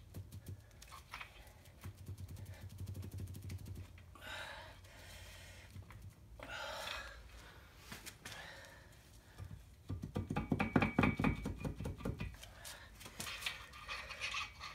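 Hand-tool work on a bare diesel engine block: scattered rustling and knocks, then a quick run of ratchet-wrench clicking about ten seconds in, as bolts on the bottom end are worked loose.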